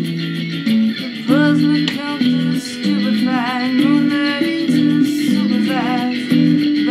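Song with plucked guitar chords under a wavering sung melody with vibrato.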